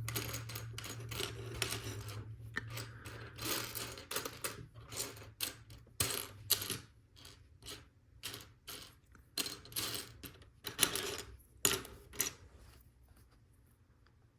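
Loose plastic LEGO Technic pieces clattering and clicking as a hand spreads and sifts through a pile of parts, searching for one piece. The clicks come irregularly and die away near the end.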